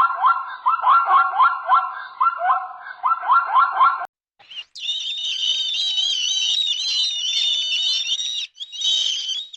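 Animal calls in two clips. First, a rapid series of short calls, each rising in pitch, about three a second. Then, after a brief break, continuous high twittering birdsong.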